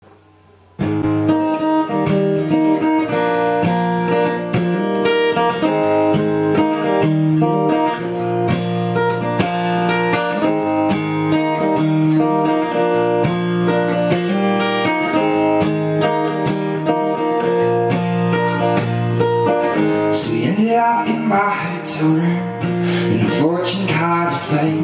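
Acoustic guitar played alone, starting about a second in with a repeating chord pattern; about 20 seconds in a man starts singing over it.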